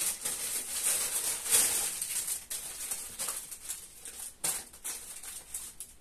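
Crinkly packaging being torn open and unwrapped by hand: dense crinkling and crackling for about the first two seconds, then thinning to scattered rustles with a sharper crackle a little after the middle.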